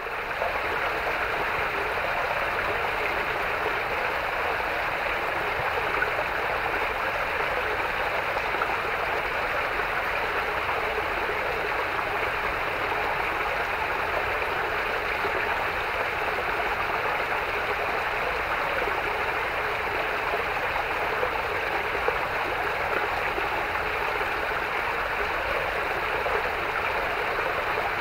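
Small forest stream running in a low cascade over mossy rocks: a steady rush and splash of water.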